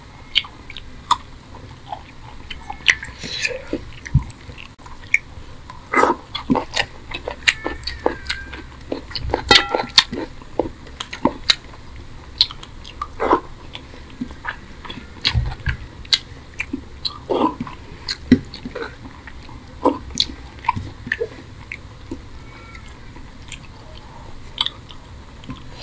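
Close-miked chewing of rice and egg curry eaten by hand, with irregular sharp wet mouth clicks and smacks, several a second.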